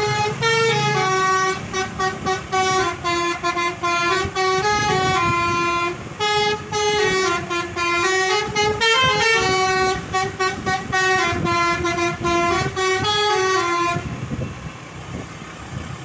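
Bus basuri (telolet) musical horn playing a melody of short, repeated, stepping notes, stopping about fourteen seconds in.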